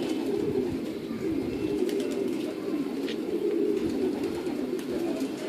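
Many racing pigeons cooing at once in a steady, overlapping chorus, with a few faint clicks above it.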